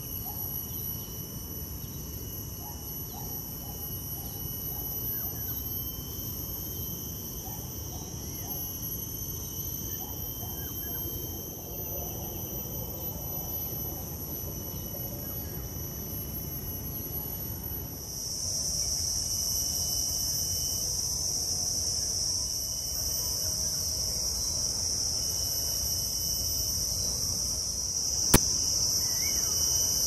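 Steady high-pitched chorus of insects, growing much louder about two-thirds of the way through, over a low background rumble. A single sharp click near the end.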